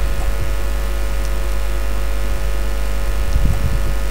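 Steady low electrical mains hum with hiss from the recording setup, and a few faint clicks.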